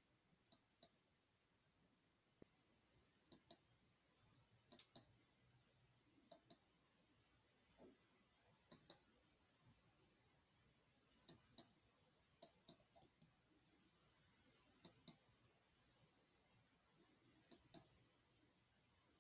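Near silence broken by faint, sharp clicks, mostly in quick pairs, coming irregularly every second or two.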